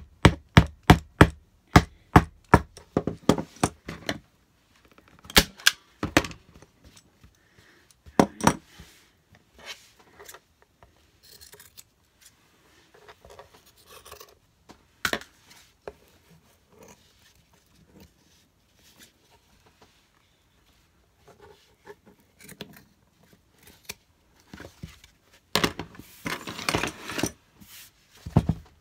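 Scissors snipping through fabric in quick even cuts, about three a second, for the first four seconds, then a few single snips and a burst of rustling near the end.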